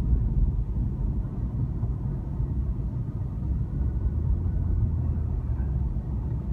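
Car driving along a town street: a steady low rumble of engine and road noise, heard from inside the vehicle.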